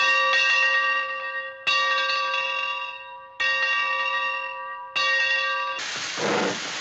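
A bell struck four times, about a second and a half apart, each stroke ringing with the same set of tones and fading away. Near the end a steady hiss takes over.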